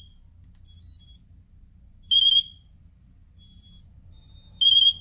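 FrSky Taranis X9D Plus transmitter in bind mode, sounding a short, high, slightly wavering beep about every two and a half seconds while it waits for the receiver to bind. Fainter high electronic chirps sound between the beeps.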